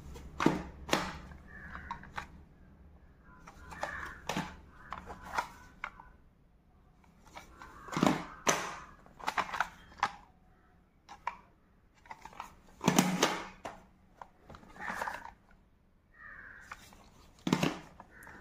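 Plastic audio cassette cases being handled: irregular clicks and clacks with bits of rustling, loudest about two-thirds of the way through.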